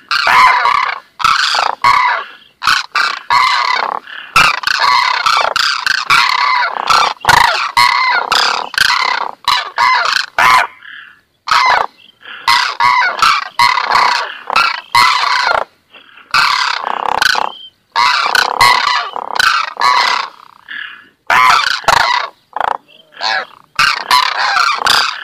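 Cranes (koonj) calling in a loud, overlapping chorus of honking, trumpeting calls, coming in bursts with brief pauses between them.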